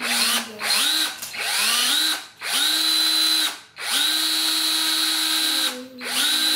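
Handheld power drill boring a hole through glued wooden popsicle sticks. It runs in short bursts with brief pauses between them, and its motor whine rises each time it spins back up to speed.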